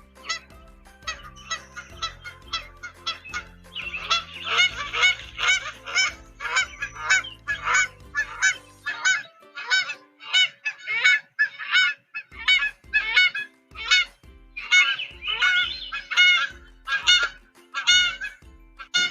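Geese honking over and over, one or two calls a second with several overlapping, louder and busier from about four seconds in.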